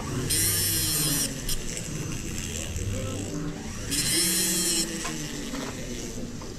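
Jeweler's handheld rotary tool whirring at high speed in two short bursts of about a second each, the second about three and a half seconds after the first.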